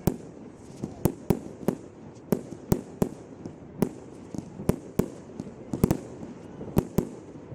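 Fireworks in a display going off in a rapid, irregular string of sharp bangs, about two or three a second.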